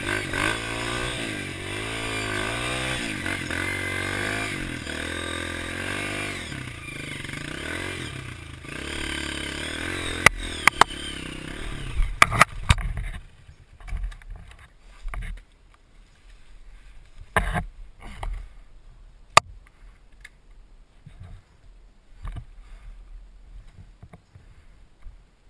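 Trail motorcycle engine running and revving up and down, with a few sharp knocks and clatter about halfway through. The engine then cuts out, leaving quieter scattered thumps and scrapes.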